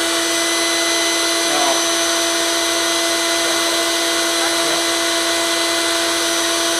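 Vacuum cleaner motor running steadily with a constant high whine, drawing suction through its hose into the bucket lid of an oil-change drain setup.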